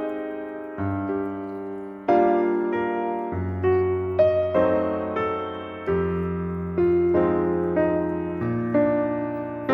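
Background piano music: slow, gentle chords struck about once a second and left to ring and fade.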